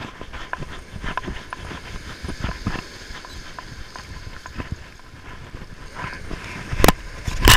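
Spinning reel being cranked, ticking and clicking, over a faint wash of surf. A few loud knocks close to the microphone near the end.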